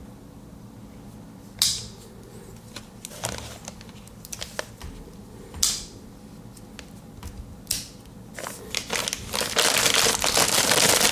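Plastic courier mailing bag crackling and crinkling as it is handled and slit open with a pocketknife's small blade. Sharp crackles come every second or two, then a steady, louder crinkling starts near the end.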